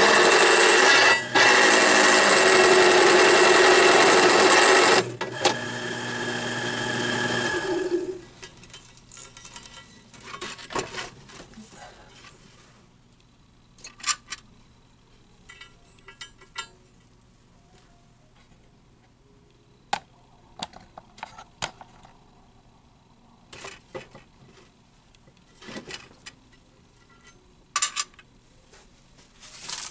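Drill press cutting a countersink into steel plate with a four-flute countersink bit: a loud, steady grinding cut for about five seconds. The cutting then stops while the motor runs on briefly, and it shuts off about eight seconds in. After that come scattered light clicks and knocks of metal being handled.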